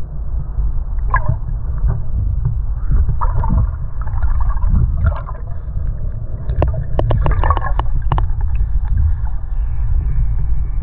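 Water splashing and gurgling in scattered bursts, strongest in the middle, over a heavy steady low rumble.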